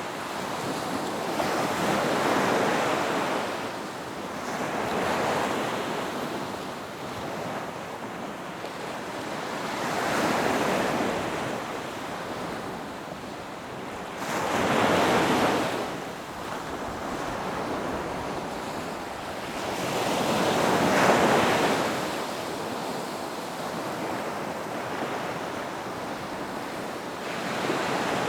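Ocean surf: waves swelling and washing in and out in slow surges every few seconds, the biggest about halfway through and again a few seconds later.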